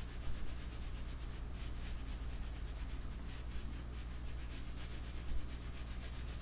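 Pencil shading on drawing paper: quick, scratchy back-and-forth strokes repeating a few times a second, laying down a dark area of tone. A low steady hum runs underneath.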